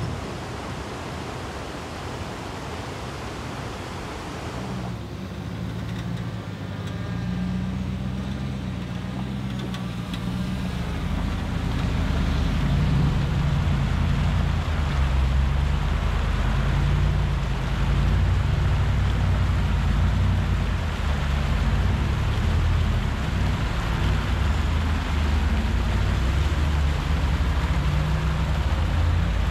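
Off-road vehicle engine running as it drives along a rough trail. A steady hiss fills the first few seconds; about five seconds in a low engine drone comes in, grows louder around ten seconds in, then holds steady.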